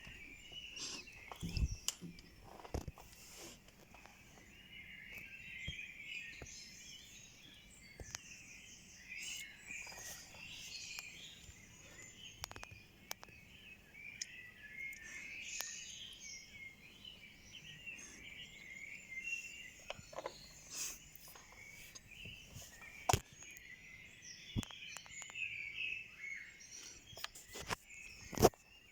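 Dawn chorus of many songbirds singing at once, a dense mix of overlapping chirps and song phrases, with a few sharp clicks, the loudest near the end.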